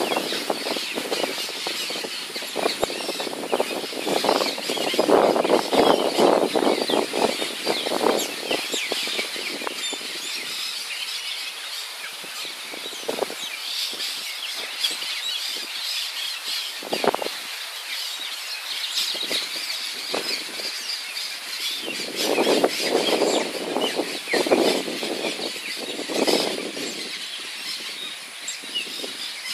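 Many birds chirping and calling at once in a steady wetland chorus, with louder, lower noisy stretches for the first several seconds and again about three-quarters of the way through.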